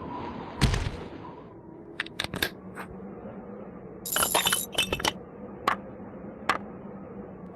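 Scattered sharp clicks and clinks from a played video of a man building a house: a thump about a second in, a few quick clicks, a brief jangling clatter about halfway through, then single clicks.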